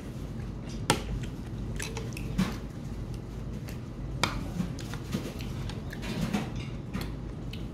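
A person eating: chewing, with metal chopsticks and a spoon clicking sharply against a plastic food container a few times, loudest about a second in. A low steady hum runs underneath.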